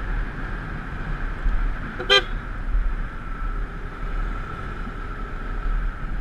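A vehicle horn gives one short toot about two seconds in, over a steady low rumble of wind and road noise on a motorcycle ride.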